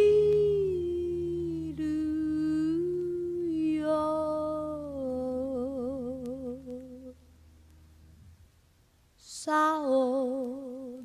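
Female jazz vocalist singing slow, long-held notes with vibrato over a faint, low sustained accompaniment. About seven seconds in the voice stops for roughly two seconds of near silence, then comes back louder.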